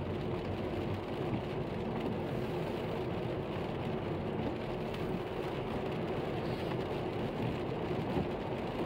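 Steady noise of a car driving on a rain-soaked road, heard from inside the cabin: engine and tyres running on wet asphalt.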